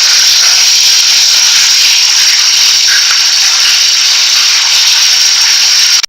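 Loud, steady hiss of an audio recorder's noise floor boosted for EVP listening, cutting off abruptly near the end.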